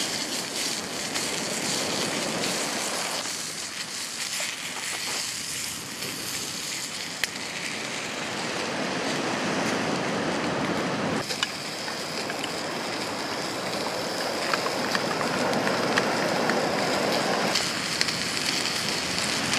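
Hot-dog sausages sizzling in a frying pan over an open wood fire, with an occasional sharp crackle or pop from the fire. The sizzle grows a little louder in the second half.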